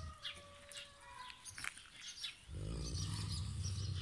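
A large Anatolian shepherd dog growling low and steadily for nearly two seconds, starting about two and a half seconds in. Small birds chirp faintly in the background.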